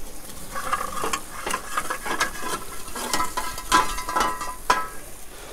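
Charcoal briquettes clattering out of a metal scoop into the steel firebox of a kazan stove, with the scoop scraping and ringing against the metal in a run of knocks and clinks.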